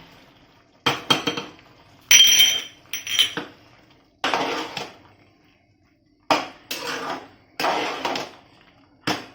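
A metal spoon clinking and scraping in a metal cooking pot while the lapsi is stirred. There are a series of sharp knocks, one ringing briefly about two seconds in, between longer scrapes.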